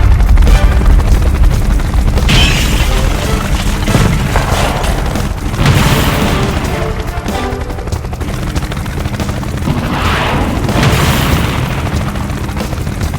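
Background music with heavy, booming bass. Noisy swells rise and fade several times over it.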